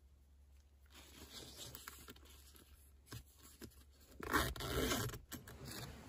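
A hand rubbing and scraping against the mesh panel of a soft fabric pet carrier: rustling that starts about a second in, with the loudest scrape around four seconds in.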